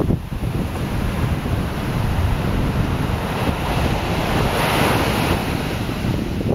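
Wind rumbling on the microphone over small waves washing onto a sandy beach, with one wave swelling up and hissing in about four to five seconds in.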